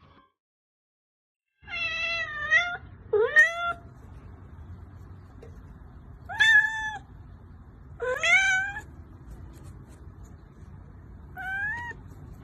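Orange tabby kitten meowing five times, drawn-out meows a few seconds apart, beginning about two seconds in, over a faint steady hiss.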